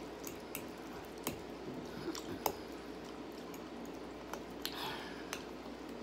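Close-miked chewing of spaghetti, with wet squishing mouth sounds, and scattered light clicks of a metal fork against a glass bowl.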